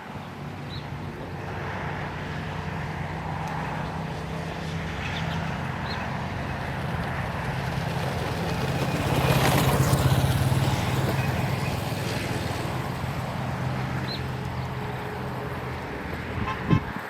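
A motor vehicle passing by: its engine grows louder to a peak about halfway through, then fades away. A few faint short bird chirps come through over it.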